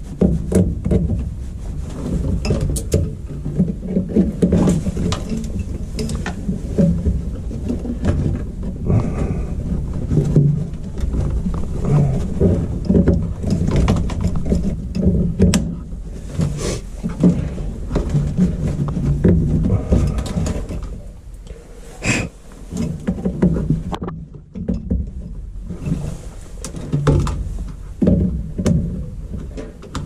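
Goodman gas furnace running, its draft inducer and burners giving a low rumble, with rattles and clicks from hands working the wiring close by. A sharper single click comes about two-thirds of the way through, just before the sound briefly drops.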